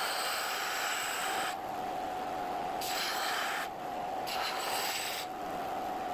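Bench belt sander running steadily while a hatchet's steel blade is pressed against the moving belt, grinding with a hiss in three passes that stop and start: the dull edge being sharpened.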